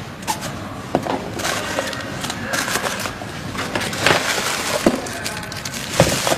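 Plastic bag crinkling and a cardboard box rustling as a small water pump is pulled out of its packaging: irregular crackling with a few sharper knocks.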